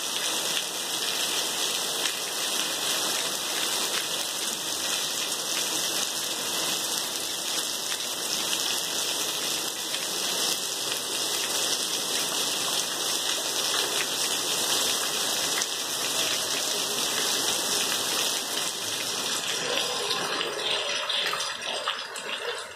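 Heavy rain falling steadily, an even hiss of drops on tree leaves and a wet paved yard.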